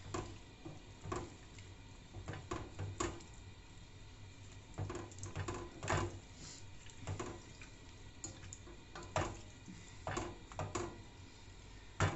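Wooden spoon stirring broccoli and potatoes in water in a stainless steel pot, with irregular soft knocks and scrapes against the pot every half second to a second and wet squishing of the vegetables.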